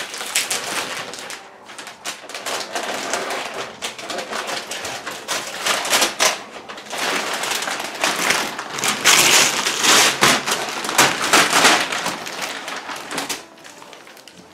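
Wrapping paper crinkling and tearing as it is pulled off a wrapped table, a dense, irregular crackling rustle. It is loudest a little past the middle and fades near the end.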